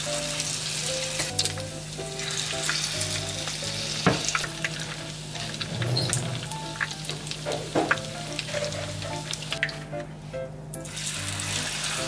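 Oil sizzling steadily as batter-coated boiled eggs deep-fry in a small pan, with a few sharp clicks along the way. Light background music with plucked notes plays underneath.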